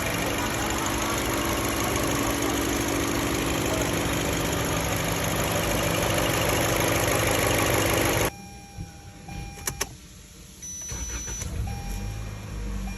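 Toyota Camry engine running steadily, cutting off abruptly about eight seconds in. After that come a few sharp clicks and a short high beep.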